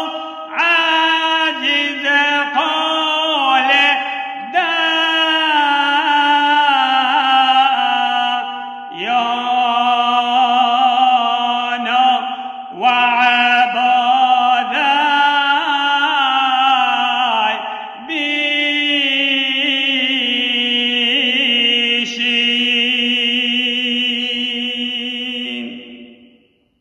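A deacon's solo male voice chanting a Syriac Orthodox hymn. He sings in long phrases of held notes with ornamented turns, each phrase breaking off every few seconds, and the last fades out near the end.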